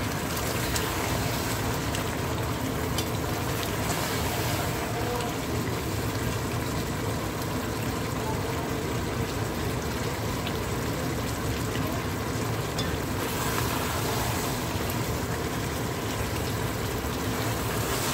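Mango talkari bubbling steadily in a pot on high heat as the last of its cooking water boils off, with a few faint clicks of a metal spoon against the pot.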